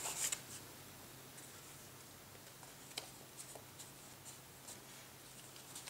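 Cardstock flaps of a paper scrapbook page being handled: a short rustle of paper at the start, then faint room hiss with a few light ticks and taps, the clearest about three seconds in.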